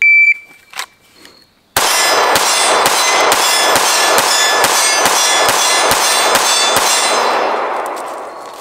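Shot-timer start beep, then a Sig Sauer P365 pistol fired twelve times in rapid succession, the first shot a little under two seconds after the beep, about two shots a second. Loud metallic ringing carries through the string and fades away after the last shot.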